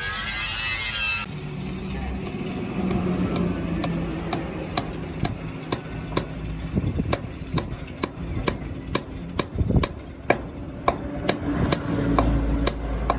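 Hand hammer striking leaf-spring steel on an anvil, forging an axe, at a steady pace of about two blows a second, each blow a sharp metallic ring.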